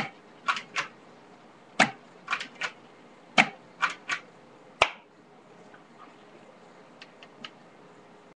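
An airsoft gun firing about ten quick shots in the first five seconds, some in fast pairs and threes, until the magazine is empty. Three faint ticks follow about seven seconds in.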